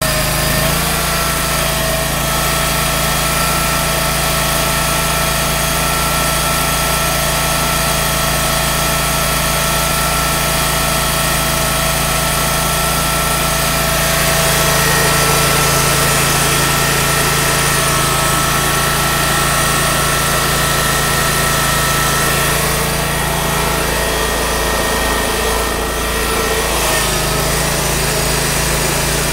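Portable band sawmill's small gas engine running steadily, its note shifting slightly about halfway through.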